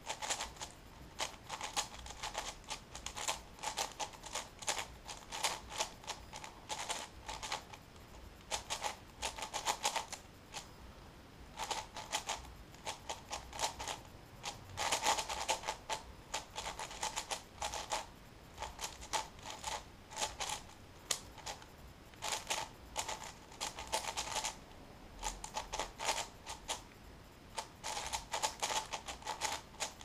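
Plastic layers of a large multi-layer speedcube being turned at speed: a dense clatter of rapid clicks coming in flurries, broken by short pauses every few seconds.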